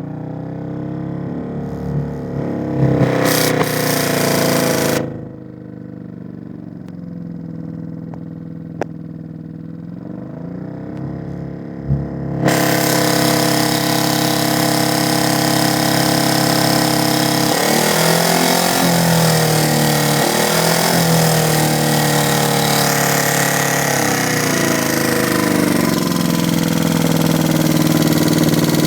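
Two-cylinder engine running unevenly at low revs with its right cylinder misfiring, revved up and down a few times early on. About twelve seconds in, a loud steady hiss joins the engine and stays.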